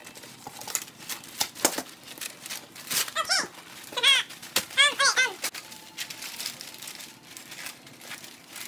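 Wrapping paper crinkling and rustling as presents are wrapped, with scissors snipping through paper. About three to five seconds in, a few short high-pitched vocal sounds rise and fall, louder than the paper.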